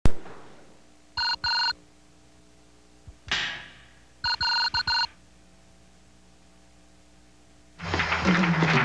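An electronic telephone ringer warbling in two short bursts about a second in, with a brief rushing sound around three seconds, then a second run of quick ring bursts. Near the end, music and clapping start loudly.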